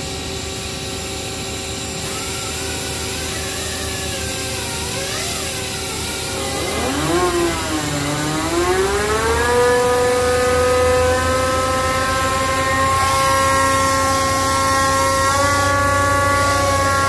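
Hydraulic test stand running a Rexroth A4VG125 axial piston pump, a steady whine of several tones. About seven seconds in the whine dips and then climbs in pitch, then holds steady at the higher pitch.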